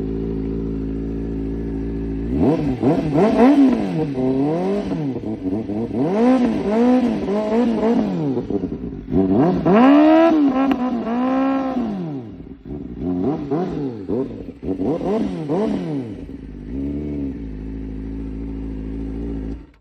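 Kawasaki Ninja ZX-4RR's inline-four engine with an aftermarket CS Project exhaust, idling steadily, then revved in a series of quick throttle blips that rise and fall in pitch for about fourteen seconds before it settles back to idle.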